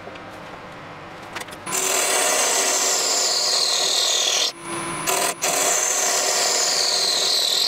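A turning tool cutting a spinning blank of elm burl and blue epoxy resin on a wood lathe: a steady scraping hiss that starts about two seconds in, after a quieter stretch, and breaks off briefly twice in the middle.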